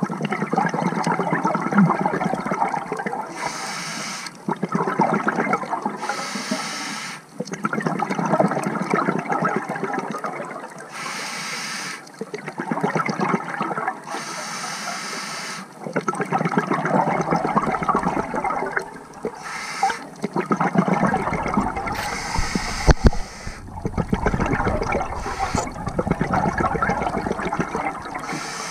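Scuba diver breathing through a regulator: a short hiss on each inhale, then a longer burst of bubbling exhaust on each exhale, repeating about every four seconds.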